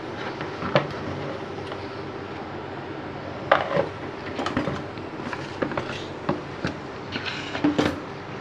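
Whole spices (cardamom, cinnamon and bay leaf) in hot ghee: a steady low sizzle with scattered sharp crackles and pops, which come more often from about three and a half seconds in.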